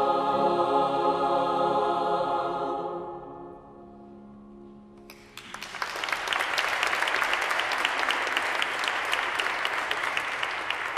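Large mixed choir holding a final sustained chord that fades away into the long reverberation of a stone church; about five seconds in, audience applause starts and continues.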